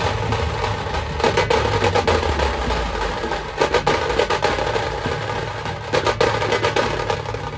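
Dhumal band music, a Maharashtrian procession band, with loud, fast drumming in dense strokes.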